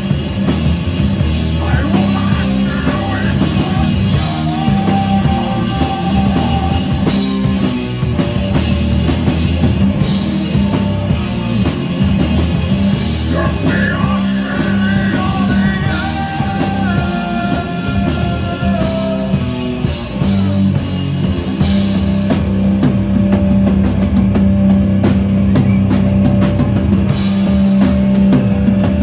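Rock band playing live: guitars, bass and a drum kit, loud and continuous, with melodic lead lines running over the rhythm.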